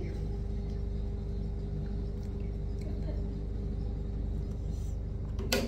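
A bathroom ceiling exhaust fan runs with a steady low hum. About five and a half seconds in there is one sharp click.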